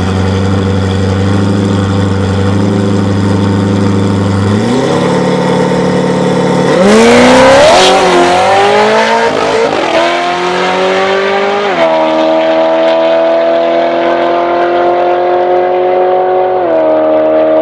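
Supercharged, methanol-injected LS3 V8 of a 2009 C6 Corvette with an automatic gearbox, making a drag-strip run. It runs steadily on the line, with the revs raised about four and a half seconds in. It launches hard about seven seconds in, and the loudest moment is the launch. The pitch then rises through the gears, with upshifts, as it accelerates away down the track.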